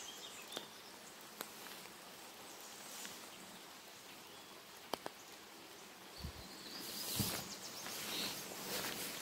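Rain falling: a steady hiss with scattered sharp ticks of drops, getting louder about seven seconds in.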